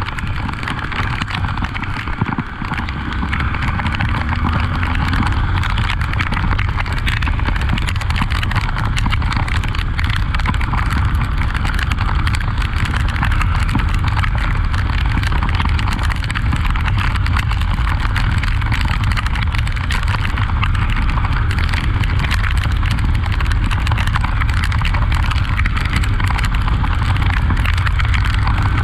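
Honda XRE 300 motorcycle on the move, its engine running under a steady rush of wind on the microphone, with one short rise in engine pitch about five seconds in.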